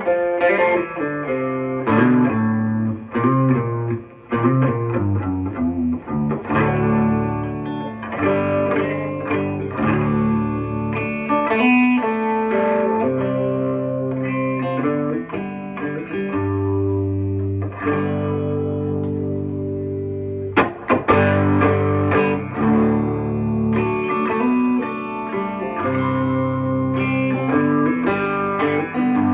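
Electric guitar with humbuckers played through a Fender Deluxe Reverb amp and a barely-on Klon-style overdrive: a run of chords and single-note lines with a mild edge of drive.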